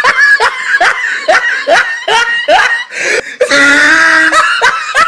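High-pitched meme laughter: a person laughing hard in short rising bursts, about two to three a second, broken by one longer held squeal about three and a half seconds in, then more bursts.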